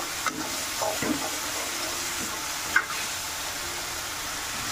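Spice paste (masala) sizzling steadily as it fries in oil in a metal kadhai, stirred with a metal slotted spoon that scrapes and clinks against the pan a few times, loudest near three seconds in. The masala is being fried down until it is done.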